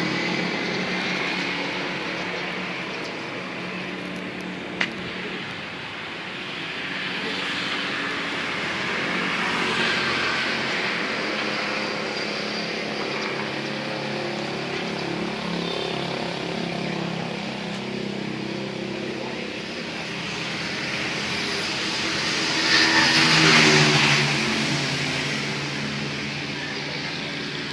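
Steady hum of distant motor traffic, with one vehicle engine growing louder and fading away about three quarters of the way through.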